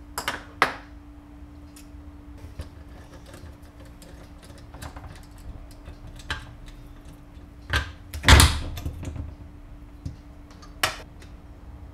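Tools and parts being handled on a workbench: a handful of sharp knocks and clicks, the loudest about eight seconds in, over a steady low hum.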